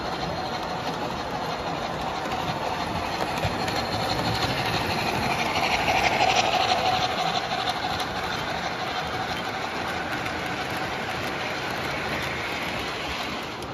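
MTH model steam locomotive and freight cars running on the layout's track: a steady rolling and motor noise that swells to its loudest as the locomotive passes close, about six seconds in, then settles back as the hopper cars follow.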